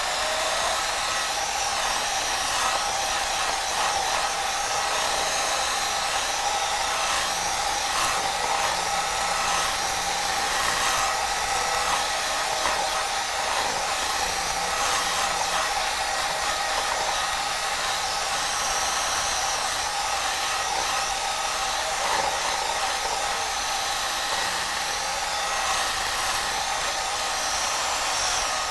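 Electric hand mixer running steadily at one speed, its beaters working margarine and eggs in a stainless steel bowl.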